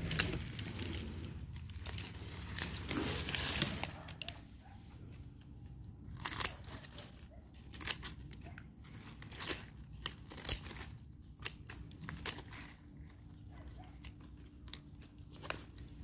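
Begonia stems and leaves rustling and crunching as the plants are handled for pruning, for the first few seconds, then a string of separate sharp clicks about a second apart.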